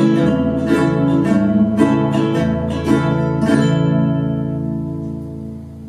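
Ukuleles strumming the closing chords of a song, about seven strums, with the last chord left to ring and fade out.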